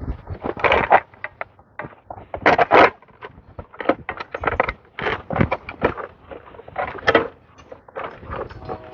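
Wire being twisted tight by hand around a cut sunflower head: an irregular run of scrapes, clicks and rustling knocks, loudest about a second in, near three seconds, and around five and seven seconds.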